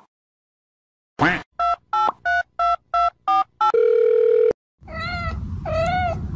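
Telephone keypad sound effect: a quick rising swoosh, then seven short dual-tone dialing beeps and a held tone, followed about a second later by a kitten meowing twice.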